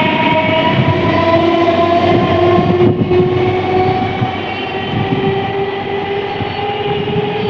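Indian Railways train horn sounding one long continuous blast of several tones, held through, over the noise of a train running through the station.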